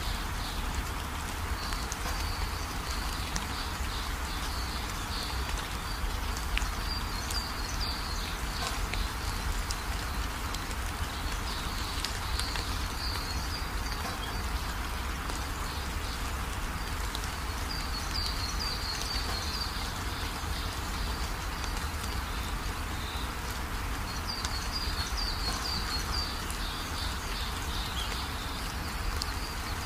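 Nature ambience: birds twittering in short runs every few seconds over a steady hiss and low rumble.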